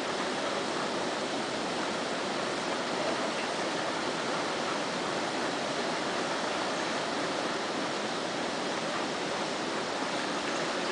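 Steady rushing of river water at a waterfall, an even hiss that doesn't change.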